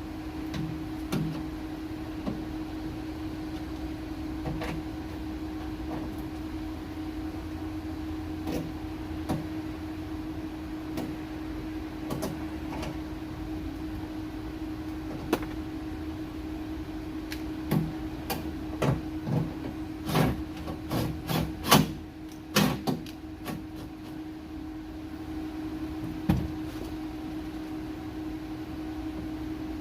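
Hand tools and metal parts clicking and knocking as the 10 mm bolts of a car trunk latch are fitted. The knocks are scattered at first, then come in a quick flurry about two-thirds of the way through. A steady low hum runs underneath.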